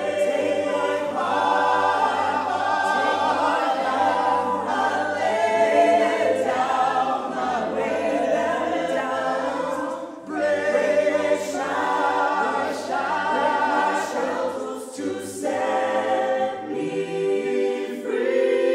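Mixed choir of men's and women's voices singing a cappella in harmony, with a short break about halfway through.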